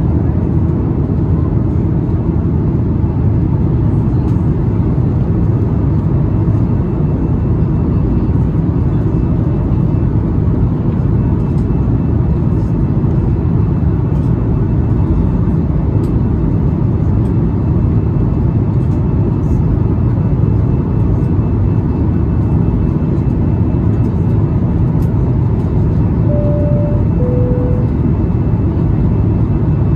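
Steady cabin noise inside a Boeing 737-8 MAX airliner in descent: a low rumble of engines and airflow. Near the end a two-tone high-low cabin chime sounds, signalling final approach.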